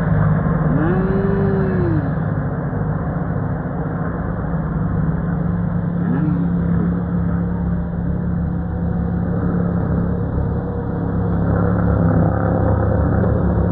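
Racing-car engines at a circuit: a steady loud din with a low engine hum. Engine notes rise and fall in pitch about a second in, briefly around six seconds in, and again near the end.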